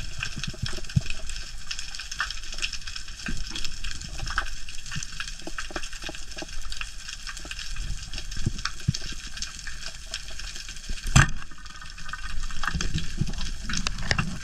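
Underwater crackle of many small clicks, then about eleven seconds in a single sharp, loud crack as a speargun fires its shaft into a hole at a catalufa (bigeye).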